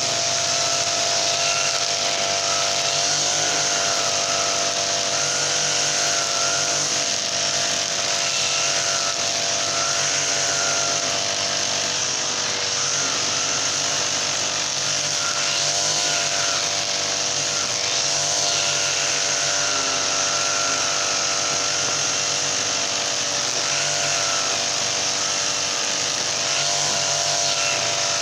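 Brush cutter with a Honda GX35 four-stroke engine running steadily, its pitch rising and dipping a little now and then.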